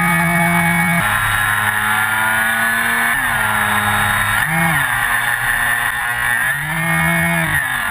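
Electric motor and propeller of a FunCub RC plane, heard from a camera on board, whining steadily with a rush of wind. The pitch shifts with the throttle: it steps about a second in, drops around three seconds in, rises and falls briefly around four and a half seconds, and dips again near the end.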